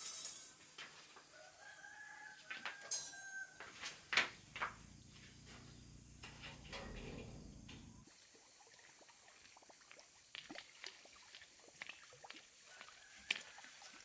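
A rooster crowing, one long drawn-out call about two seconds in, among scattered clicks and knocks. A low rumble starts about four seconds in and cuts off suddenly around eight seconds.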